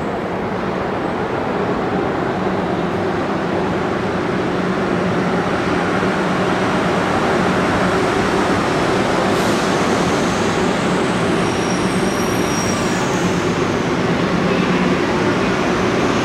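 The Plane Train automated people mover running at the platform behind the screen doors: a steady rumble and hum of the train that slowly grows louder. A faint high whine shifts in pitch about two thirds of the way in.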